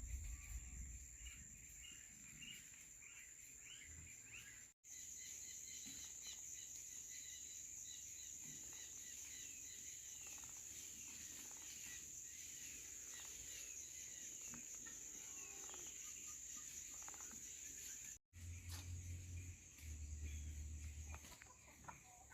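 Faint outdoor nature ambience: a steady high-pitched insect drone with many small bird chirps over it, and low wind rumbles on the microphone near the start and near the end. The sound drops out for an instant twice.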